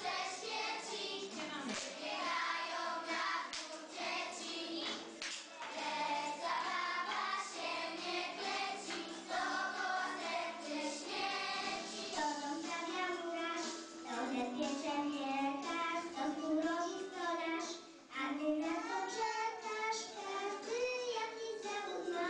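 Singing in a high, child-like voice over music with a steady beat.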